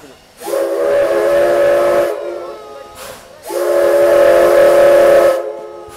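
C11-class steam locomotive's whistle sounding two long blasts of about two seconds each, a chord of several steady tones over a rush of steam, with a short gap between them.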